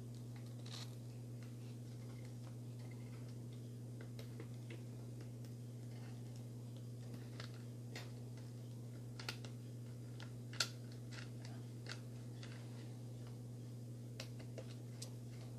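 Scattered light clicks and taps of a metal hex driver turning small screws into the plastic link mounts of an RC crawler chassis, with one sharper click a little past the middle, over a steady low hum.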